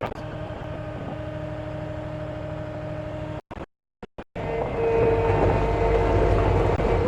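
Kubota SSV75P skid steer's diesel engine running steadily. About three and a half seconds in the sound cuts out for about a second, then the engine comes back louder with a steady whine over it.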